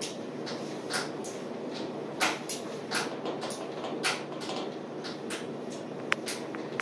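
A tanker under way at sea: a steady low rumble from the ship, with short irregular knocks and rattles about every half second to second, and a sharp click near the end.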